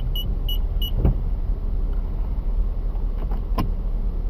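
Steady low rumble of road traffic and idling engines heard from inside a stopped car. Four short high beeps sound in the first second, and a few light clicks follow later.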